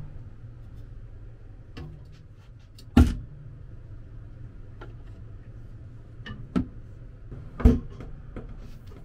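Handling sounds in a small room: two sharp knocks, about three seconds in and again nearly five seconds later, with a smaller knock and light clicks and taps between them, over a steady low hum.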